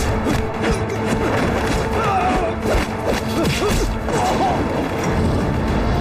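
Film fight sound effects: a quick run of punch and kick impacts with whooshes, and men's grunts and cries, over background music.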